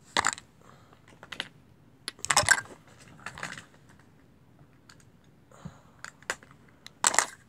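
Makeup containers and packaging being handled: a scatter of small plastic clicks and taps with a few short rustles.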